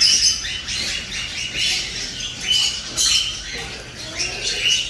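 A crowd of caged birds chirping and squawking together: a dense, unbroken chatter of short, high calls overlapping throughout.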